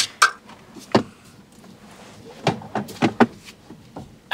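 Scattered short clicks and knocks inside the cab of a Nissan e-NV200 electric van as it sets off, ending in a louder knock. There is no engine running beneath them.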